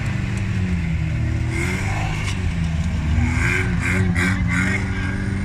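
Off-road vehicle engine running and revving, its pitch rising and falling as the throttle changes.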